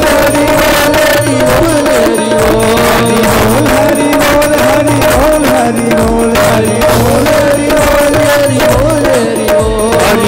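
Devotional kirtan music: a held, gently gliding melody line over a steady beat of hand drum and percussion strokes.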